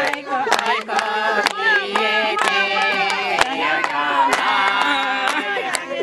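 A group of women singing together in celebration, with steady handclaps about twice a second.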